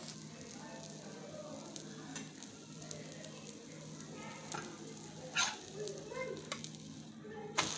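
Egg omelette sizzling gently in oil on a black griddle pan. A steel spatula clicks and scrapes against the pan a few times, most sharply a little past five seconds in and just before the end.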